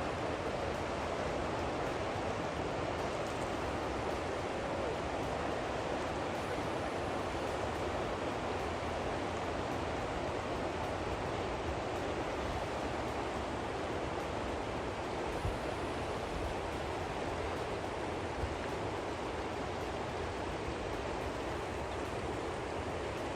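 Steady rushing of the Nolichucky River's current, an even wash of noise, with two faint knocks about two-thirds of the way through.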